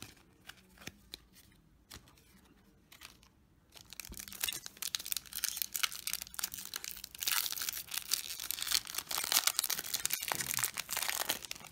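A few soft clicks of cards being handled, then a foil trading-card booster pack crinkling and being torn open by hand. The crackle starts about four seconds in and is loudest near the end.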